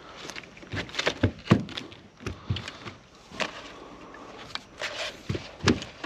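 A string of irregular light knocks and clicks, roughly one to three a second, from hands, tackle and a landed barramundi being handled on a boat while the fish is unhooked.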